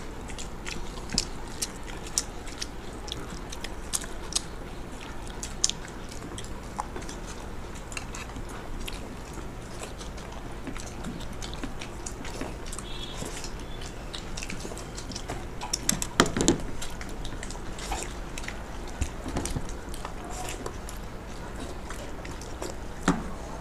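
Several people eating puri with ghugni by hand at the same time: chewing and mouth smacks with many small clicks, over a low steady hum. There is a louder knock about two-thirds of the way through.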